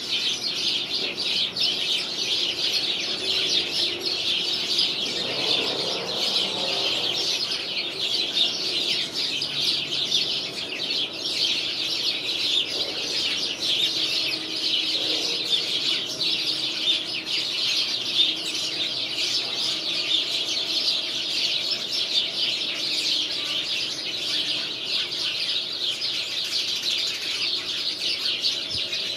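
A flock of sparrows chirping nonstop, a dense chorus of many overlapping short chirps.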